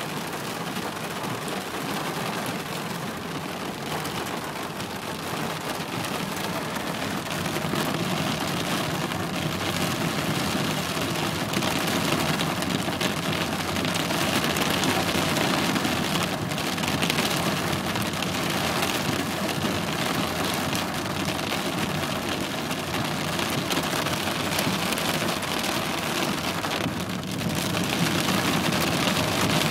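Heavy rain pouring down in a steady, dense hiss, growing a little louder partway through.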